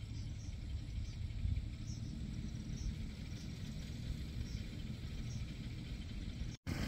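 Outdoor ambience under an approaching thunderstorm: a steady low rumble with faint high chirps about twice a second. The sound cuts out briefly near the end.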